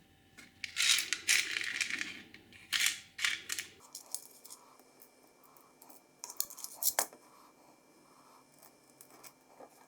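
Workshop handling noises: two stretches of scraping and rustling in the first few seconds, then a few sharp clicks and taps of small parts being handled.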